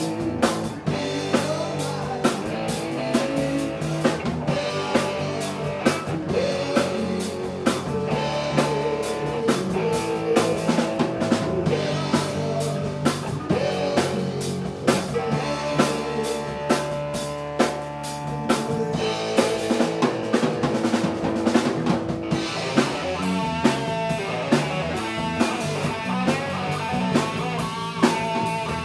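Live three-piece rock band playing: electric guitar and electric bass over a drum kit, with a steady beat of drum hits.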